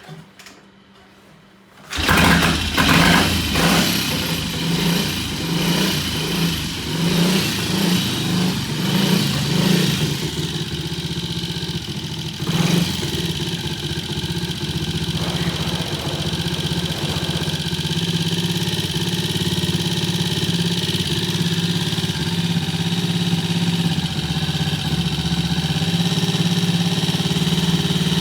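Triumph T20M single-cylinder four-stroke motorcycle engine starting about two seconds in after a hard start. It runs unevenly with swells in speed for several seconds, then settles into a steady idle. The engine is running on a standard battery ignition system.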